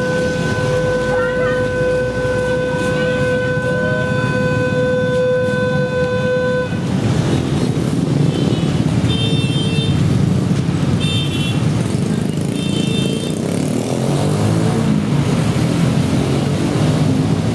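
Busy street traffic running steadily, with a long steady horn-like tone held for the first seven seconds or so, then several short high-pitched toots or beeps.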